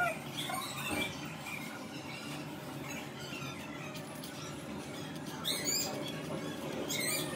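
Hands rubbing and pressing chicken pieces into crushed crumbs on a steel plate: soft rustling and crunching, with two brief louder crackly rustles near the end. Faint high chirps sound now and then in the background.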